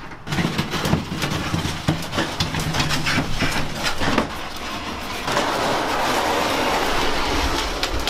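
Wooden bed frame knocking and clattering as it is carried, with footsteps, over a steady rushing rumble that grows louder for the last few seconds.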